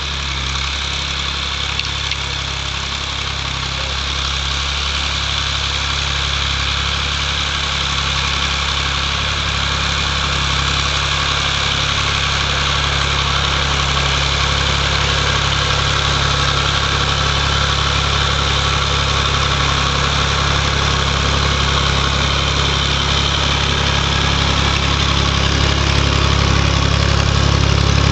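Massey Ferguson 135 tractor engine running steadily under load while pulling a plough, growing gradually louder as the tractor approaches.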